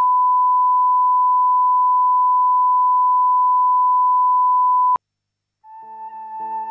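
Steady, loud single-pitch test tone of the kind played with colour bars, which cuts off abruptly with a click about five seconds in. After a brief silence, music starts near the end.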